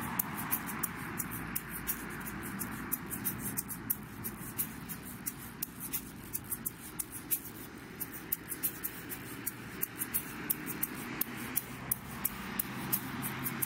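A small handheld rattle shaken, giving rapid, irregular light clicks, several a second, over a steady hiss.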